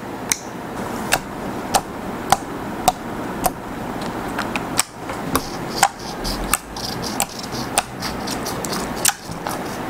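Thick slime being poked, stretched and pressed by fingers, giving sharp clicking pops over a steady soft wet sound. The pops come about every half second at first, then more irregularly.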